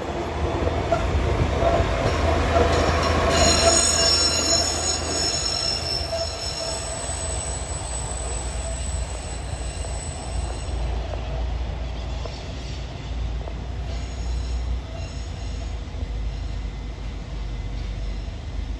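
Bus-type rail inspection car passing and running away on the track, with a low engine rumble throughout. Its wheels squeal high-pitched on the rails a few seconds in, as it passes at its loudest. The sound then fades as it moves off, with faint squeals again later.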